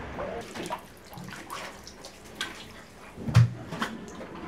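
Shallow floodwater on a floor splashing in short, irregular splashes, with one heavier thump a little over three seconds in.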